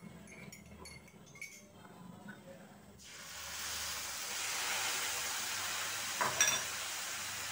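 Milk poured into a hot pan of fried vermicelli and sugar starts sizzling about three seconds in, then keeps up a steady hiss. A brief clink comes about six seconds in.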